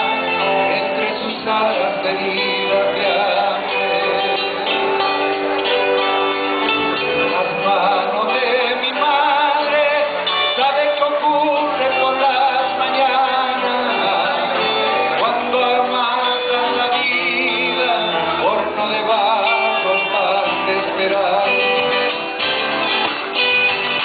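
A live Argentine folk band plays: a man sings over strummed acoustic guitars and a bass guitar.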